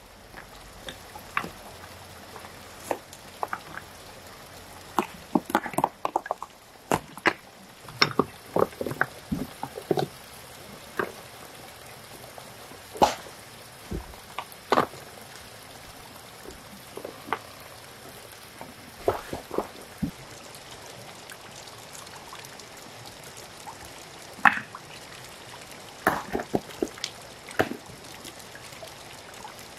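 Irregular light knocks and clicks, clustered in several busy spells, over a steady background hiss.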